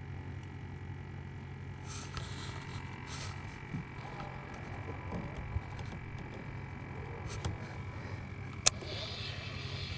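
Steady low hum with a few small clicks and knocks, and near the end one sharp click as the handle of a baitcasting reel is turned.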